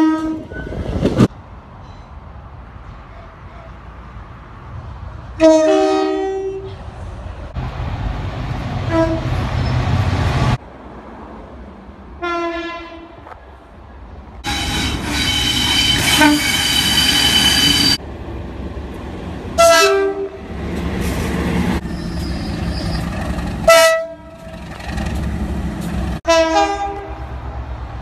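A string of short two-tone horn blasts from several different British trains, about half a dozen in all, with the rumble of passing trains between them and abrupt cuts from one to the next. In the middle a train passes close by with a loud hiss and high ringing.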